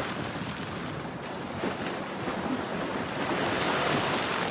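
Steady outdoor rushing noise, swelling slightly about three to four seconds in.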